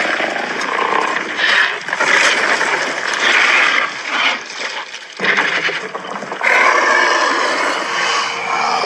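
Mixed King Kong film roars and growls, movie-monster sound effects layered together: a series of long roars, one after another, with short breaks about 2, 5 and 6.5 seconds in.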